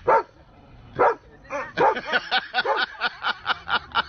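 Siberian husky barking: two single barks about a second apart, then a fast run of short barks, about six a second.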